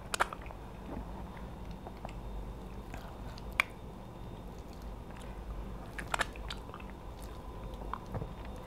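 Close mouth sounds of people eating soup and meat by hand: chewing and biting, with a few sharp clicks, the loudest a little past three and a half seconds in.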